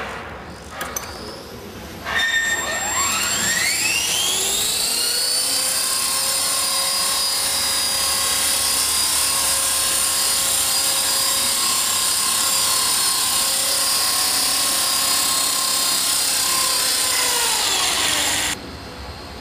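Small electric radio-controlled helicopter's motor, gears and rotor spooling up with a rising whine about two seconds in. The whine then holds steady at a high pitch for about eleven seconds, winds down and cuts off near the end.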